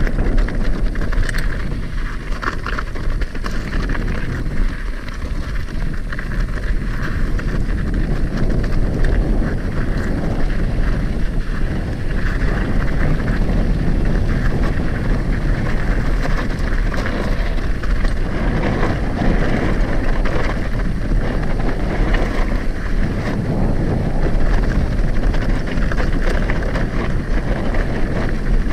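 Wind buffeting the microphone while an Upland Vanguard hardtail mountain bike descends a rocky trail at speed. Tyres crunch over rock and gravel, with scattered clicks and clatter from the bike.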